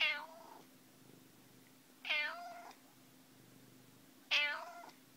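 Domestic cat meowing three times, about two seconds apart, each meow short and falling slightly at the end, over a faint steady hum.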